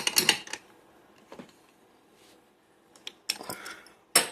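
Small metal clicks and clinks in four short clusters as a Lockwood round lock cylinder, just picked open, and its metal picking tools are handled.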